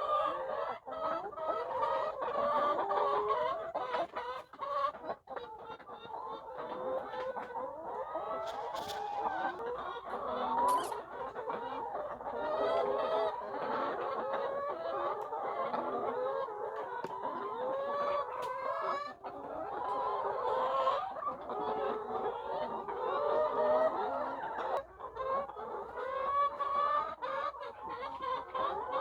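A large flock of layer hens clucking continuously, with many short calls overlapping.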